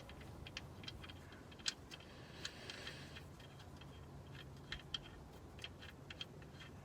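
Light, irregular metallic clicks as the oil drain plug is put back into the oil pan, about one or two ticks a second, none in a steady rhythm.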